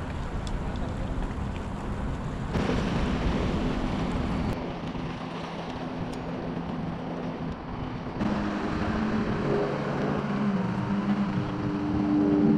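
Wind buffeting the microphone, then a small motorboat's engine running steadily from about eight seconds in, growing louder near the end as the boat passes.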